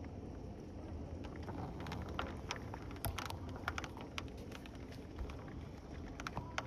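Rain falling during a thunderstorm, with scattered drops tapping irregularly close by over a steady low rumble of wind.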